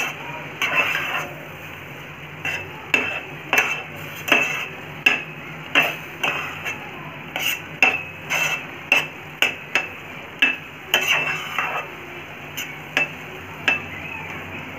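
A spoon stirring and scraping thick masala paste and mushrooms in a stainless steel pot, knocking against the pot's side and bottom in irregular strokes about one or two a second.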